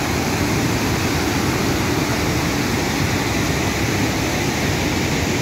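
A waterfall rushing steadily: an even noise with no breaks, strongest in the low end.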